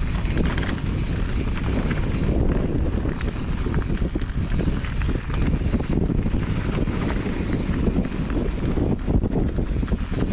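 Wind noise on the microphone over a mountain bike's tyres rolling on a rocky, gravelly trail, with many small clicks and knocks from stones and the bike rattling over the rough ground.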